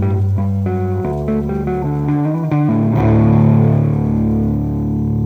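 Guitar playing a line of single picked notes, then about three seconds in a chord is struck and left ringing.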